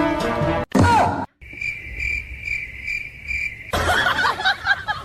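Cricket chirping in even pulses, about two a second, for some two seconds. Before it, background music cuts off and a short, loud sliding sound follows. Near the end, busy voice-like sounds come in.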